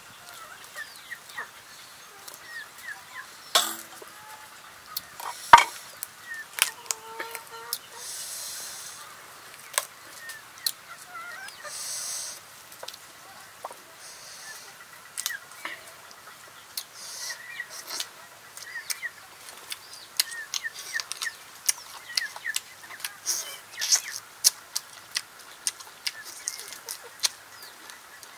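Close-up eating sounds of grilled duck: wet chewing and lip-smacking clicks, with crackly tearing of the roasted skin and meat by hand and a couple of sharper snaps. Chickens cluck and birds call in the background.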